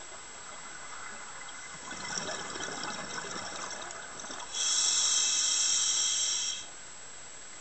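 Scuba diver breathing through a regulator underwater: a gurgling, bubbling exhale from about two seconds in, then a loud hissing inhale lasting about two seconds, cutting off shortly before the end.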